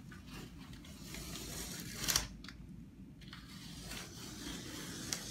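Blue masking tape being peeled away from a freshly siliconed partition joint and scrunched up by hand: a crackly rustle, with one sharp louder rip about two seconds in and a smaller one near the end.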